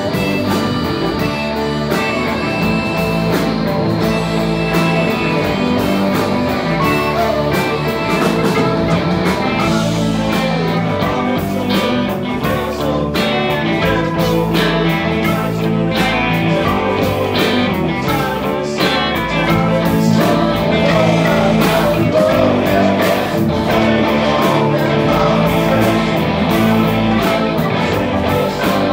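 A rock band playing live: electric guitars, electric bass and drum kit, with a man singing over them.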